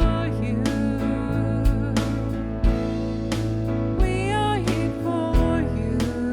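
Worship song played by a band: a voice singing over sustained instruments and bass, with a steady beat struck roughly once a second.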